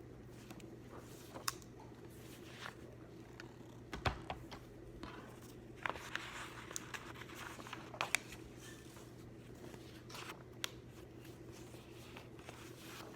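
Desk study sounds: scattered light taps and clicks of pens and things set down on a desk, with paper rustling for a second or two about six seconds in, over a steady low room hum.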